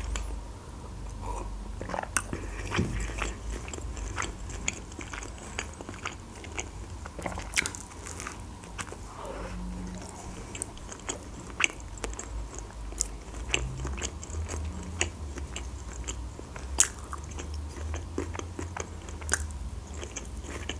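A person biting into and chewing a small burger, with many short mouth clicks and smacks scattered throughout.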